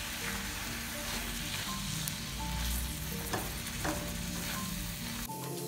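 Chicken in chili balado sauce sizzling in a metal wok while it is stirred with a silicone spatula, a steady frying hiss with a couple of light clicks of the spatula against the pan a little past halfway.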